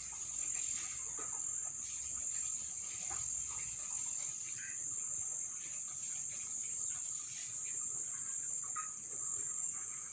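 Steady high-pitched chorus of insects, a continuous shrill buzz that holds without a break.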